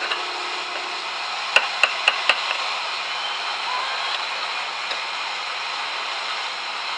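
A metal kitchen utensil tapping four times in quick succession, sharp and clicky, about two seconds in, over a steady hiss.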